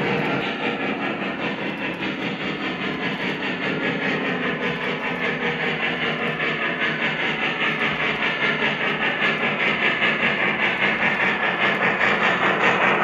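Lionel Vision Line Niagara O-gauge model steam locomotive running under power, its onboard sound system giving a fast, steady steam chuff along with the rumble of wheels on three-rail track. It grows louder toward the end as the locomotive comes closer.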